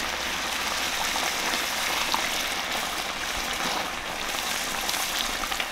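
Chicken pieces frying in a hot pan: a steady sizzle with small crackles and pops.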